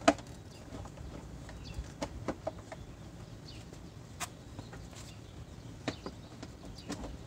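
Scattered light clicks and knocks of a plastic motorcycle fairing panel being handled and fitted against the Suzuki Hayabusa's frame, the sharpest knock right at the start.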